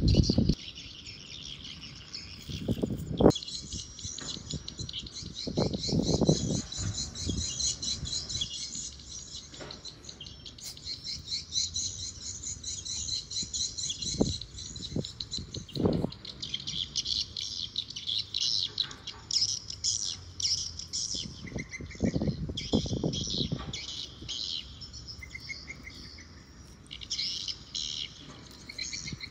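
Small birds chirping and twittering on and on, with several short low rumbles of wind buffeting the microphone.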